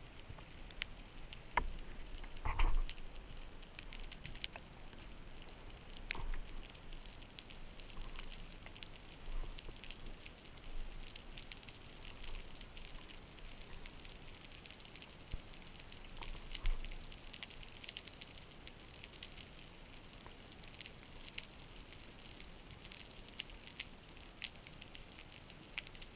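Underwater crackle heard through a GoPro housing: a dense, faint stream of tiny clicks and pops, with a few louder knocks scattered through, the loudest a little over two seconds in.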